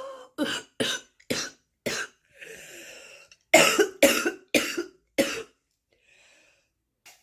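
A woman's smoker's morning cough. First comes a run of four short coughs, then a drawn breath in, then four louder coughs in quick succession.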